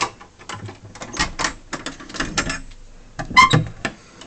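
Keys rattling and clicking in a hotel room's door lock as the door is unlocked and opened, in a quick, irregular run of clicks with a brief squeak about three and a half seconds in.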